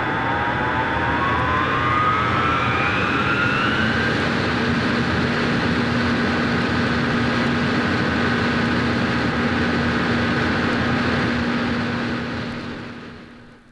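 Coal hoist winch machinery running: a whine rises in pitch over the first few seconds over a steady din, a steady low hum sets in, and the whole sound fades out near the end.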